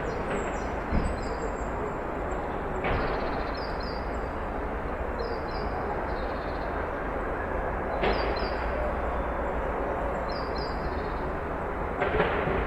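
Street ambience: a steady wash of traffic noise with a low rumble, a few sharp thumps, and a small bird chirping in short double notes every two seconds or so.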